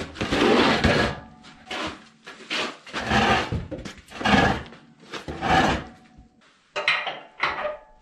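Steel pallet-fork attachment being shoved and turned on a concrete floor: a run of scraping and clanking noises, each under a second long.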